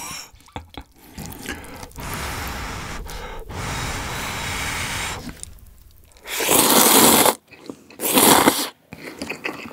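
Cup ramen noodles (Omori kimchi-jjigae ramen) slurped loudly twice, about six and eight seconds in. Before that comes a softer steady rushing sound while the noodles are held up on chopsticks.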